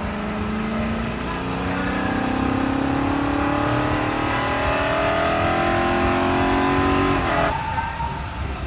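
Race car engine accelerating, its pitch climbing slowly and steadily, then cutting off suddenly near the end.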